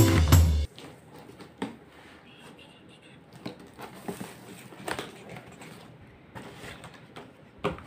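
Background music that cuts off suddenly under a second in, then faint rustling and scattered light knocks of a cardboard carton being opened by hand, its flaps folded back and paper inserts handled.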